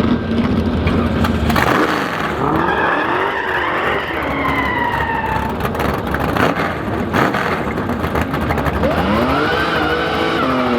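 Drag racing car engines revving and accelerating hard, their pitch climbing and dropping back as they pull through the gears.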